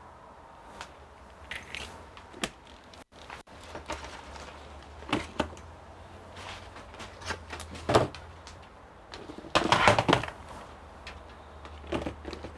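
Handling noises from packing away small parts and cooler packaging: scattered clicks and knocks with short bursts of rustling, the loudest a rustling clatter about ten seconds in.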